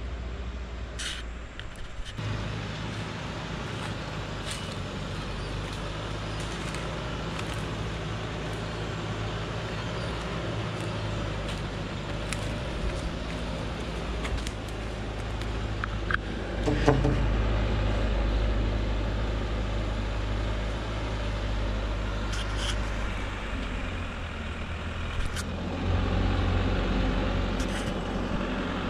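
Heavy acacia-hauling truck's engine running steadily at idle, getting louder about halfway through and again near the end, with a few light clicks and knocks.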